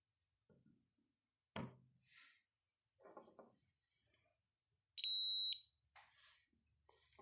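A small electronic buzzer in a homemade battery-powered fire alarm gives one loud, steady, high-pitched beep of about half a second, about five seconds in. Before it come a single knock and some faint handling noises.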